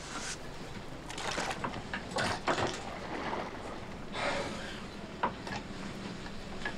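Fishing-boat ambience: a low steady hum of the boat's engine under the sound of water, with a few short knocks and scrapes and a brief louder swell of noise near the middle.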